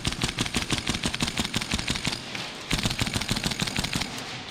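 Gas blowback airsoft rifle firing on full auto: two long rapid bursts of sharp clacking shots, the second starting after a short pause just under three seconds in.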